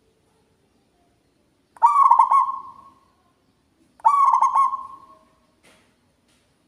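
Zebra dove (perkutut) cooing loudly twice, about two seconds apart: each phrase is a quick run of stuttering notes that trails off.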